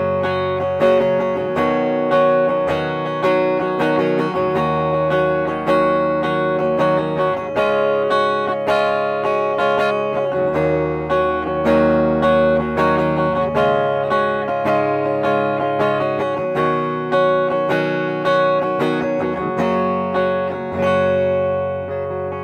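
Schecter Hellraiser Extreme C-1 electric guitar with EMG 81/89 active pickups, both pickups selected together, played with a clean tone. Picked chords and single notes ring on, restruck about every half second.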